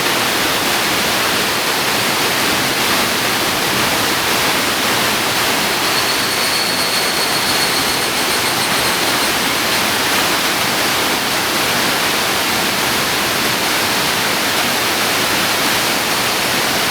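Waterfall rushing steadily, a dense, even water noise. About six seconds in, a faint thin high-pitched tone sounds over it for some three seconds.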